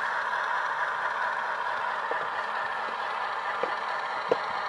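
Tsunami sound decoder in an HO-scale Proto 1000 Alco RS-10 model locomotive playing steady diesel engine running sound through its small speaker as the model rolls along the track. A few light clicks come in over the second half.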